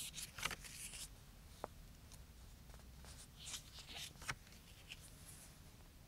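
Pages of a paper CD booklet being turned by hand: soft paper rustles in two short bursts, one right at the start and another about three and a half seconds in, with a few light ticks.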